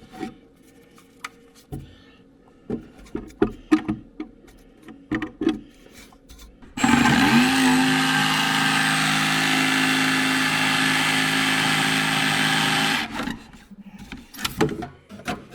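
Scattered clicks and knocks of tools and wood being handled. About seven seconds in, a handheld power tool starts, its motor rising quickly to a steady whine, and runs for about six seconds before stopping, followed by more clicks.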